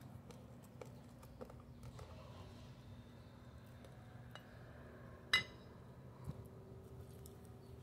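Quiet mealtime handling at a plate: faint small clicks, then one sharp ringing clink about five seconds in, a fork knocking against a ceramic plate. A faint steady low hum runs underneath.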